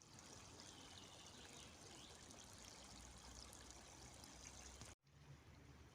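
Faint steady rush of flowing river water, briefly cutting out about five seconds in.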